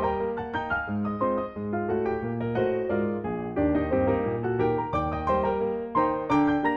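Background music: piano or electric piano playing a steady melody over a bass line.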